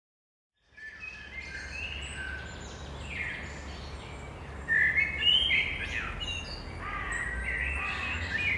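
Birds chirping and calling in short rising and falling notes over a low steady hum, starting about a second in after silence and getting louder about halfway through.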